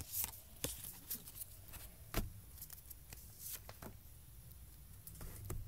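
Pokémon trading cards and a foil booster pack being handled: scattered soft taps and rustles, the clearest a sharp tap about two seconds in.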